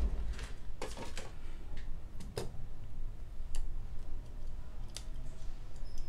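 Scattered light clicks and taps from hands handling an opened iPhone 7 Plus and its small parts on a repair bench.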